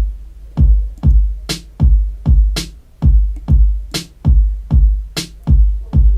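Electronic hip-hop beat from a drum machine: a deep kick drum with a long low tail hits about twice a second, with a sharp snare or clap roughly every second and a bit.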